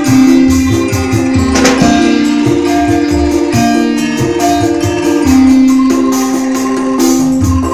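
Music: a long-held melody line that steps between notes, over steady percussion with tambourine-like jingles.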